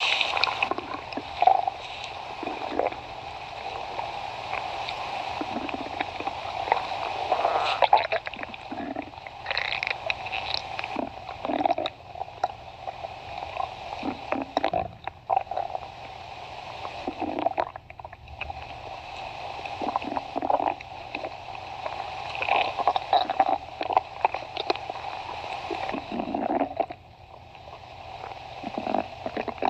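A human stomach growling: a long, uneven run of rumbles with many short sharp squeaks and pops, broken by a few brief lulls.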